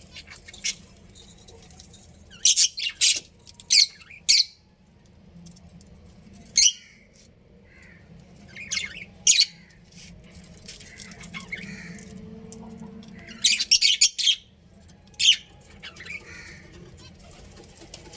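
Budgerigars chirping: short, sharp, high calls in scattered clusters of two to four, with pauses of a few seconds between.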